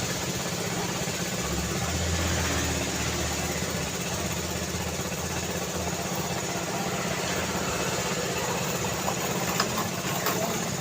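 Busy street traffic, a steady wash of vehicle noise, with a motor vehicle engine idling close by as a low steady hum that grows stronger about a second and a half in.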